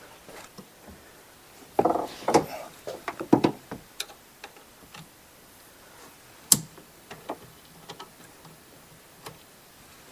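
Scattered clinks and clicks of metal hand tools: a socket and extension being handled and fitted, with a cluster of clatter about two seconds in and one sharp click past the middle.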